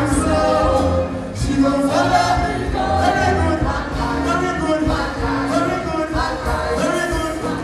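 Live concert music: several voices singing a melody over a band with a bass line and a steady drum beat.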